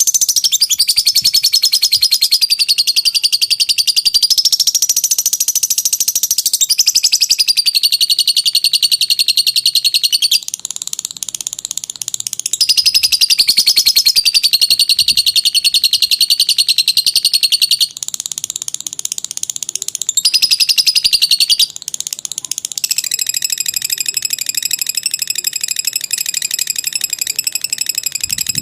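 Lovebird's long 'ngekek' chattering song: a high, very rapid trill held for many seconds at a time, with short breaks and shifts in pitch and loudness.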